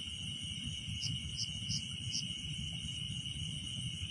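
Night insect chorus: crickets keep up a steady high-pitched trill, and four quick higher chirps come about a second in. A low, uneven rumble runs underneath.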